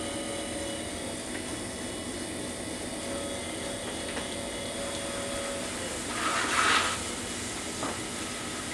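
Electric potter's wheel motor running steadily with a whine, as wet clay is centered on the spinning wheel under the hands. A brief louder burst of noise a little over six seconds in.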